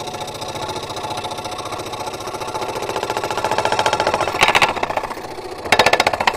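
Scroll saw running and cutting wood, its blade reciprocating in a fast, steady buzz. It grows louder toward the end, with two short louder rattling stretches typical of blade chatter when the workpiece is not held down firmly.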